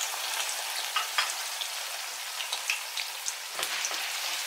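Diced raw potatoes frying in plenty of hot oil in a frying pan, just added: a steady sizzle with scattered crackles and pops.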